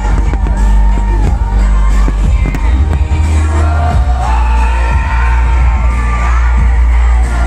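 A pop song, a singer over a heavy bass beat, played loud through a big sound system, with the bangs of fireworks cutting through, most of them in the first second or so.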